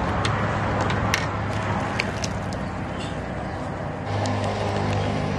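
A ladle stirring broth in a large stainless-steel divided noodle-soup pot, with a few light metal-on-metal clinks, over a steady low rumble.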